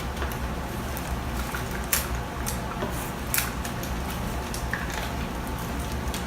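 Eating and handling food at a table: wet, squishy chewing and food sounds with scattered sharp clicks of containers or cutlery, the two loudest about two and three and a half seconds in, over a steady low hum.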